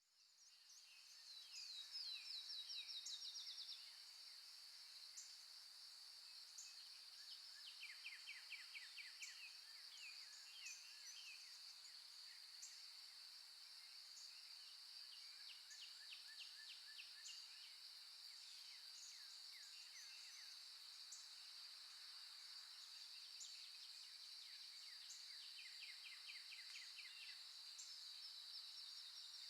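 Recorded nature ambience fading in at the start: wild birds singing in rapid repeated trills and short high chirps over a steady high-pitched insect drone. Faint throughout.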